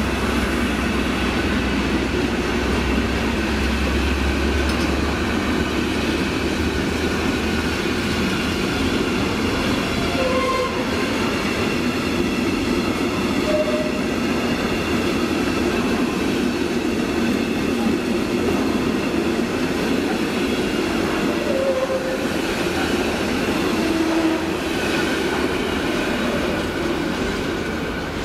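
Container wagons of a freight train rolling past on jointed track, a steady clatter of wheels on rails with a few brief wheel squeals. The hauling diesel locomotive's low engine drone fades out in the first few seconds, and the rolling noise eases off slightly near the end as the last wagons go by.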